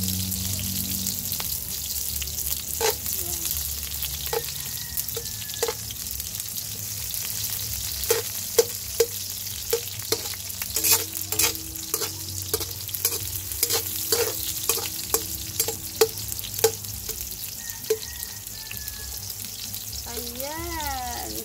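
Sliced red onion and ginger sizzling in hot oil in a stainless steel wok as they are sautéed. A slotted metal spatula stirs and scrapes them, knocking sharply against the pan about twice a second through the middle stretch.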